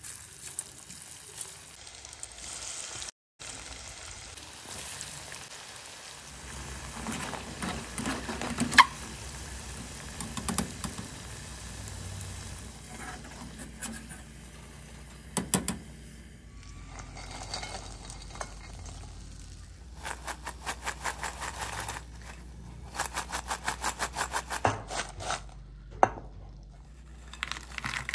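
Breaded pasta deep-frying in hot oil, a steady sizzle, broken by clinks and scrapes of a wire spider strainer stirring the pieces and lifting them out of the pan. In the second half there is a run of quick strokes, about four a second.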